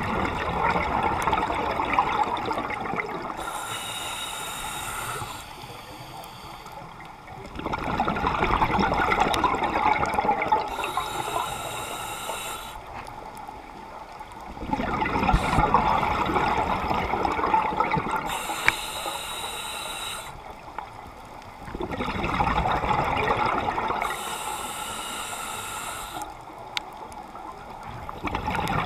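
Scuba diver breathing through a regulator underwater, in a slow regular cycle of about one breath every seven seconds. Each breath brings a loud rush of exhaled bubbles, a short sharp hiss as air is drawn from the regulator, then a quieter pause. There are about four cycles.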